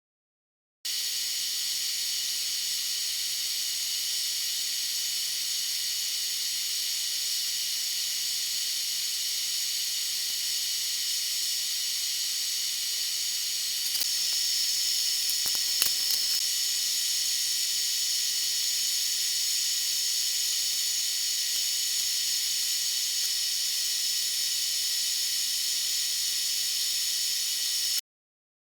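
Steady high-pitched hissing with a few faint steady whistle-like tones in it, starting and stopping abruptly; it gets slightly louder about halfway through, with a brief click shortly after.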